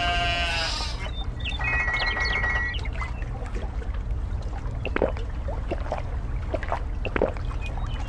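A sheep bleat that ends about a second in, then a short high buzzing call. After that come scattered soft clicks and laps of water, like an animal drinking.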